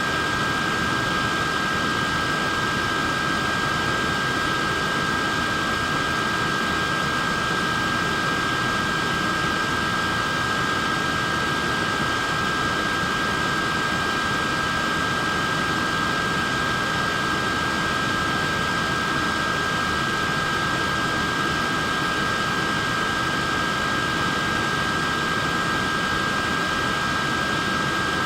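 Wearable neck fan running steadily: a constant airy whoosh of its small fans with a steady high whine from the motors.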